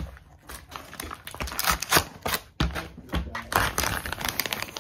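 Clear plastic film sealing a plastic food tray being cut open and peeled back: a busy run of crinkling and crackling with sharp clicks, louder in the second half.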